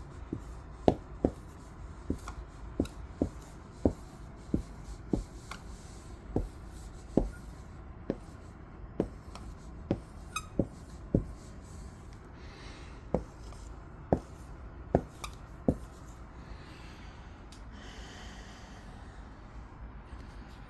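A series of about twenty sharp, irregular taps or clicks, roughly one every half second to second, over a low steady hum. The taps stop about three quarters of the way through, followed by a soft rustle.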